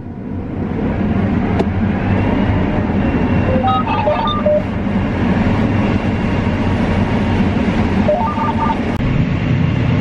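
Combine harvester running while harvesting corn: a steady machine drone that swells over the first second and then holds, with a faint high whine. Twice, about four and about eight seconds in, a short run of electronic beeps steps through several pitches.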